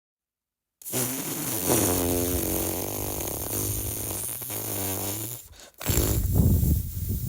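Dubbed-in comedy sound effect: a long buzzy, low-pitched blare lasting about four and a half seconds, starting about a second in after silence, then a shorter, rougher burst near the end.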